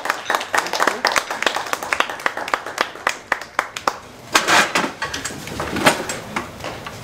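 A small audience clapping, dying out about four seconds in, then two short louder noises.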